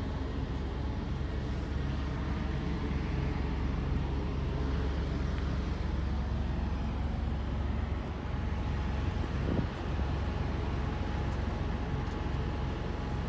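Heavy diesel truck engine idling: a steady low rumble, with a faint steady high whine joining about halfway through.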